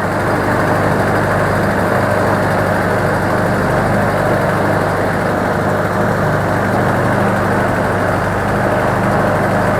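Passenger ferry boat's engine running steadily at a constant pitch, a little louder from the start on.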